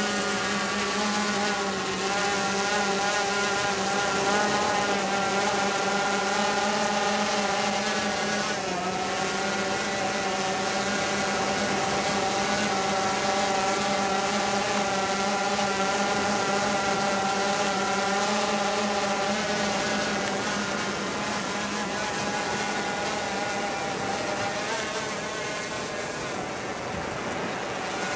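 Quadcopter drone carrying a baited fishing line, its propellers giving a steady, even whine with a slight wobble in pitch about eight seconds in. It grows fainter over the last several seconds as the drone flies away.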